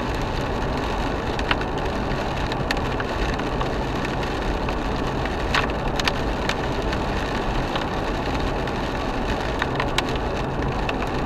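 Steady road noise inside a car driving on a wet road in light rain, with a low engine hum and a few scattered sharp ticks.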